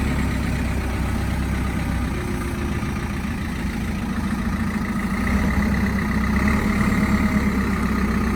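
JCB 3CX backhoe loader's diesel engine running steadily, most likely at idle, a little louder for a couple of seconds past the middle.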